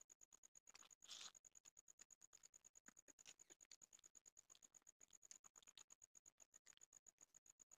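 Near silence, with a faint high-pitched tone pulsing rapidly, about eight times a second, and a brief faint rustle about a second in.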